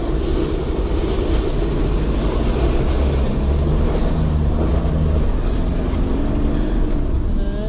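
Four-wheel-drive vehicle driving on beach sand in four-wheel drive, with a loud, steady engine and tyre rumble.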